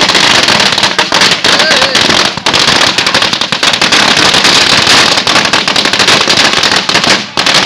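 A long string of firecrackers going off in rapid, continuous bangs, with a few short gaps near the end.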